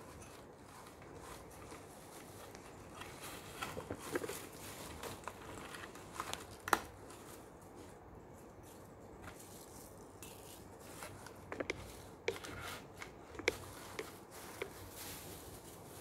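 Crinkle-cut shredded paper filler rustling faintly as hands dig through it in a wicker basket, with scattered light clicks and taps from handling.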